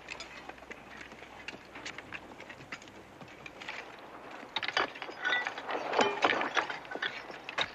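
Picks and shovels striking rock and gravel: a quick run of sharp metallic clinks and scrapes that starts about halfway through, after a quieter opening of faint scattered ticks.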